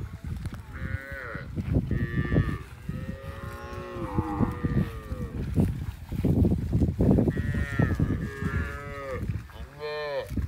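A herd of cows and calves mooing, one call after another, with several calls overlapping. Some calls are drawn out and arching, others are short and higher.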